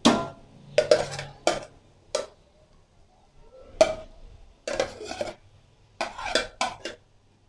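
Steel spatula and serving utensils clinking and scraping against a steel cooking pot and a plate while vegetables are spread over rice: about a dozen short, sharp metallic clinks in uneven clusters, the loudest at the start.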